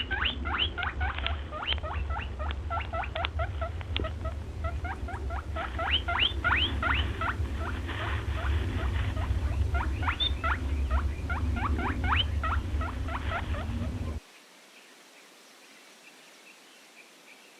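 A crowd of young farm animals calling together: many short, high, mostly rising peeps and squeaks in quick succession, over a steady low rumble. It cuts off suddenly about fourteen seconds in.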